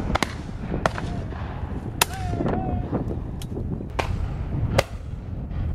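Shotguns firing along a line of guns at a driven game shoot, about half a dozen shots, some close and some distant, at uneven intervals. Strong wind rumbles on the microphone underneath.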